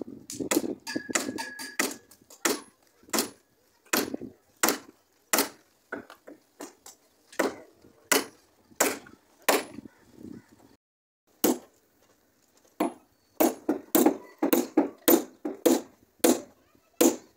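Hand hammer blows on the wooden planking of a ship's hull, sharp single knocks every half second to a second. They pause briefly about eleven seconds in, then come in a quicker run near the end.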